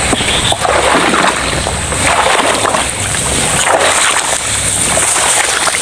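Footsteps splashing and squelching through waterlogged swamp grass, with leaves and stems brushing, in irregular strokes.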